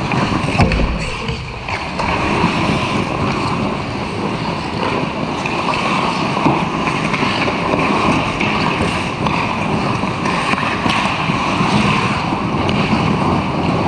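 Ice hockey play right at the goal: skates scraping and carving on the ice over a steady rush of rink noise. A few sharp knocks from sticks or the puck stand out, one about a second in and another past the middle.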